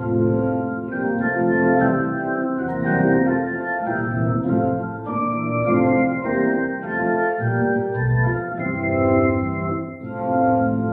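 Organ playing slow music in sustained, held chords, with a short break between phrases near the end.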